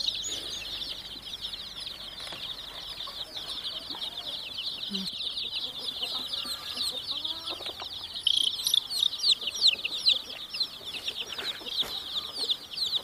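A flock of baby chicks peeping nonstop, many short high-pitched cheeps overlapping into one dense chorus, growing louder about two-thirds of the way through.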